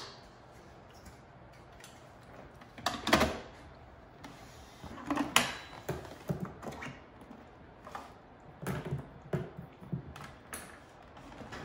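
Knocks and clicks of hard plastic being handled as a reptile fogger is put together: its water bottle capped and set upside down on the base, and the mist hose fitted. The loudest knocks come about three and five seconds in, with a cluster of smaller clicks near the end.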